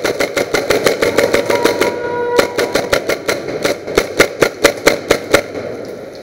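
Airsoft guns firing rapid strings of sharp cracks, about six to eight shots a second at first, then about five a second. The firing stops about five seconds in.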